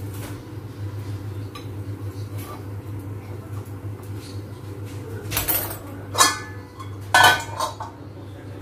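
Metal tongs and a pan lid clinking against a small frying pan on a gas stove: a few sharp, ringing clinks in the second half, over a steady low hum.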